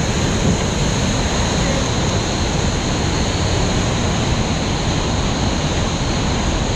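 Whitewater rapids on a steep creek running at high flow: a loud, steady rushing of water.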